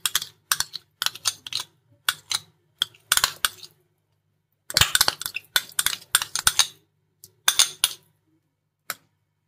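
Spoon clinking and scraping against a bowl and a metal kadhai as ghee is scooped out and knocked off into the pan: clusters of sharp clinks and scrapes, with a short pause about four seconds in.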